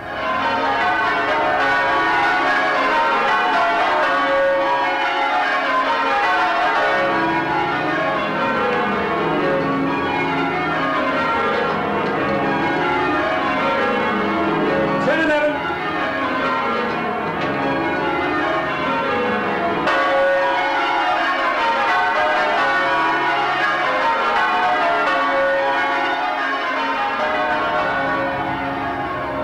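Change ringing on the tower bells of St Mary-le-Tower, a ring of twelve swung full circle by ringers on ropes. The bells strike in steady, repeating descending rows.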